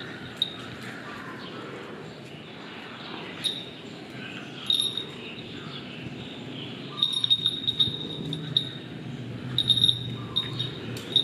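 Two small terrier dogs play-fighting on a stone-tiled floor, over a steady low background murmur. Short high chirps come in quick clusters, now and then at first and often in the second half.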